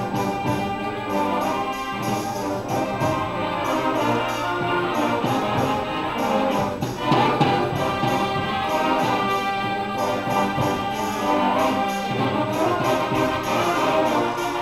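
Concert band playing a mambo, brass to the fore, with a loud accented hit about seven seconds in.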